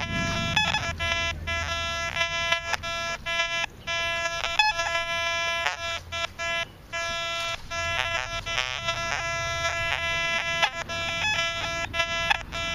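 Metal detector with a 6x10-inch double-D search coil giving a run of choppy beeps on one pitch as the coil sweeps the ground, signalling foil and iron targets.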